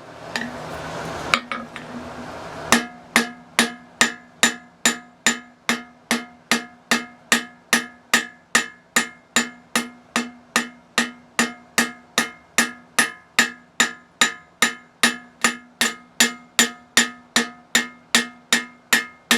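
Blacksmith's hammer striking hot steel on an anvil in a steady rhythm of about two and a half blows a second, each blow leaving a ringing tone. A flat-ground cross-peen is spreading the end of the bar wider without lengthening it, forming the head of a holdfast. A brief rushing noise comes before the first blow.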